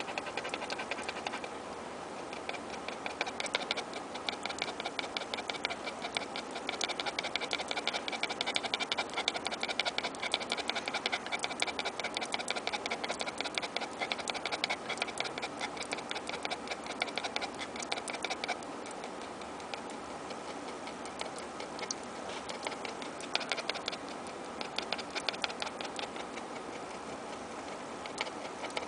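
Yorkshire terrier making a rapid run of clicking noises, several a second. The clicks go on in one long stretch, break off about two-thirds of the way through, then start again more sparsely.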